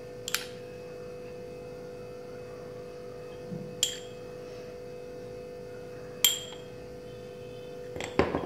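A metal spoon clinking against a small glass bowl of curd as curd is spooned onto the plate: three clear clinks about two and a half seconds apart, each ringing briefly, and a few lighter ones near the end, over a steady hum.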